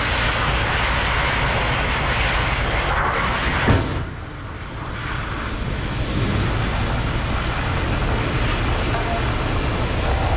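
Scania S770 V8 truck engine running at low speed while the truck closes up its extendable trailer. A single sharp knock comes a little under four seconds in.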